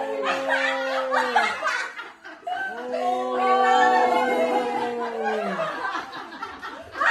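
People at home letting out two long, drawn-out voice calls, each held steady and then falling away, the second ending a little over halfway through, with laughing and chatter between.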